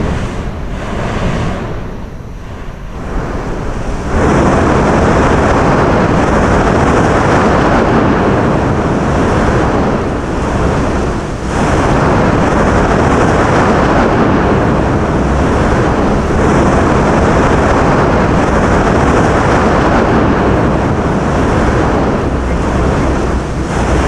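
Tofua volcano's active crater vents roaring as they give off gas. A few softer puffs come first, then about four seconds in the sound swells to a loud, constant rush that dips only briefly near the middle.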